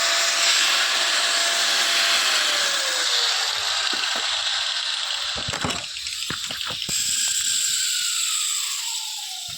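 Electric angle grinder working metal at a weld with a steady hiss, its motor pitch sagging under load, with a few sharp knocks of contact; near the end it is switched off and spins down with a smoothly falling whine.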